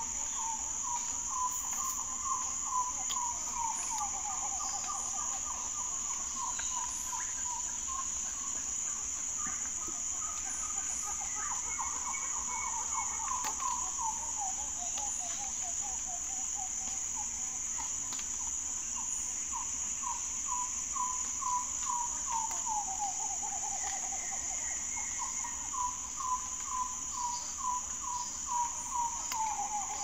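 Amazon rainforest insect chorus, a steady high-pitched drone, with a bird singing four times over it. Each song is a quick series of notes that slides down in pitch at the end.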